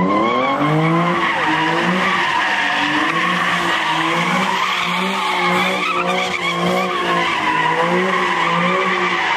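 A car doing donuts: its tyres squeal continuously as they spin on the pavement, and the engine is revved hard with its pitch rising and falling about twice a second.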